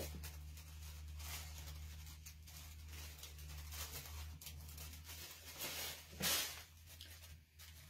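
Small scissors snipping through a thin paper napkin, a series of faint soft cuts over a low steady hum, with a brief louder paper rustle a little after six seconds in.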